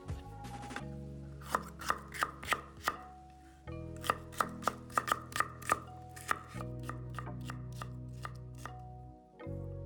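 A kitchen knife chopping on a cutting board in two quick runs of about three strokes a second, over background music with slow, sustained chords.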